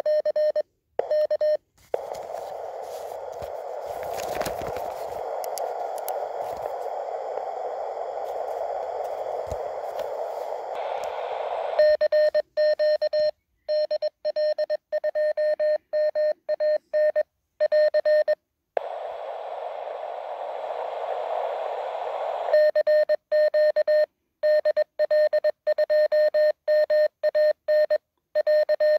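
Morse code sidetone from a (tr)uSDX QRP transceiver sending its automatic CQ loop: a tone of about 600 Hz keyed on and off. Twice it stops and the receiver's hiss through the narrow CW filter takes over while it listens for a reply, first for about ten seconds and later for about four, and no answering station comes through.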